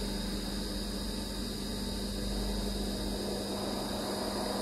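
Industrial single-needle sewing machine running steadily as it stitches a fabric binding around a curved neckline.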